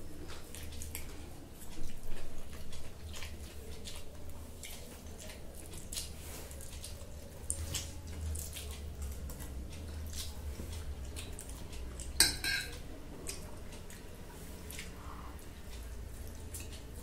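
Forks and spoons clicking and scraping on glass plates while two people eat chow mein, with wet slurping and chewing of the noodles. A brief, sharper clatter about twelve seconds in.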